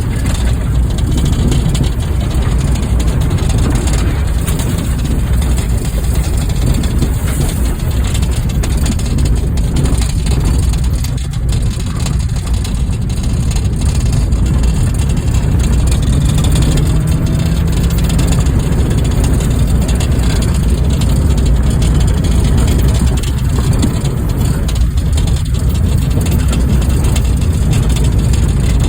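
Stripped-down Honda Fit's four-cylinder engine running steadily as the car drives off-road, a continuous low engine sound.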